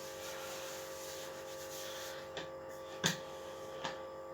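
Puff pastry being handled on a kitchen worktop: faint rubbing over a steady background hum, with three light knocks, the loudest about three seconds in.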